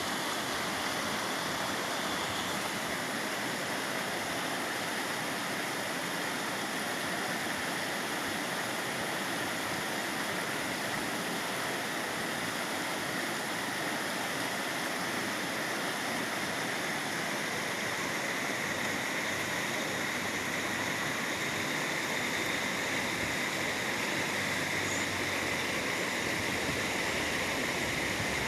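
Steady rushing of running water, like a stream or small waterfall, even and unbroken throughout.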